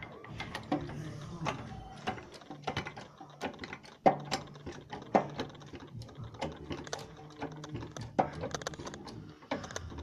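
Ratchet wrench clicking in irregular runs, with metallic clicks and knocks, as a car's wheel nuts are undone.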